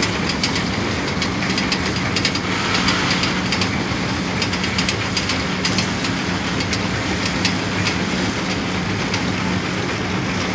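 Ball chocolate foil-wrapping machine running: a steady hum under a rapid, uneven clatter of clicks from its moving mechanism.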